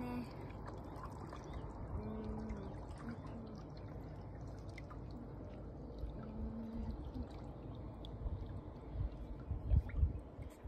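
Water sloshing and dribbling in a small pool as a child moves through it, with a few low thumps near the end.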